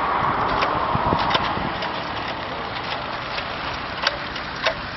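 Steady noise of road traffic, with a few sharp knocks and clicks scattered through it.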